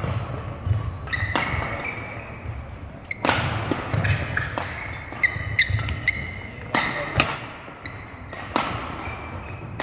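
Badminton rally: rackets smacking the shuttlecock every second and a half to two seconds, with sneakers squeaking and feet thudding on the hardwood court between shots.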